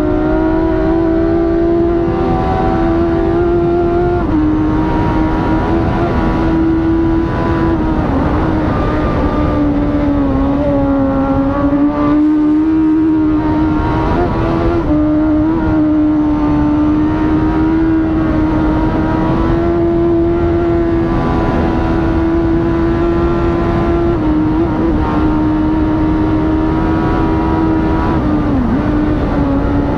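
Suzuki classic superbike's inline-four engine at racing revs, heard on board with wind rush. Its pitch holds fairly level, with brief steps at gear changes and a throttle-off dip about twelve seconds in.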